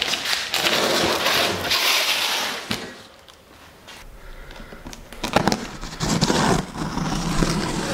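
Large cardboard shipping box being handled on a concrete floor: a loud stretch of scraping and rustling cardboard, then a quieter moment, then knocks and rubbing as hands work over its packing tape.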